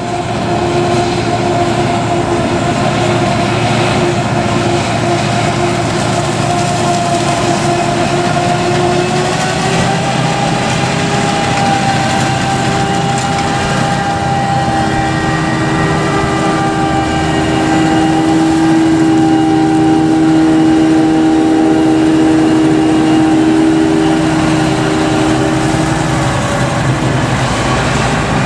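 Krone Big X 700 self-propelled forage harvester chopping maize: a loud, steady machine noise with a high whine from the chopper and blower. The whine's pitch steps up slightly about a third of the way in.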